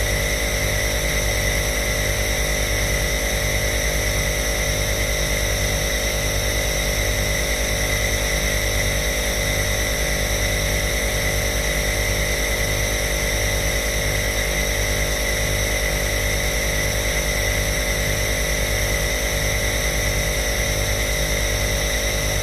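Compressor nebulizer (inhaler) running steadily: an even motor hum and airy hiss with a regular low pulsing underneath.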